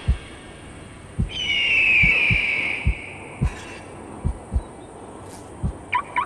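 Heartbeat sound effect: slow, deep thuds, some coming in close pairs, pounding steadily. About a second in, a long high screech falls in pitch and fades after a second and a half.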